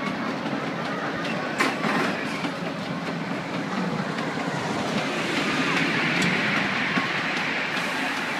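Roller coaster train running along its steel track, wheels clacking, with a rushing noise that swells from about five seconds in.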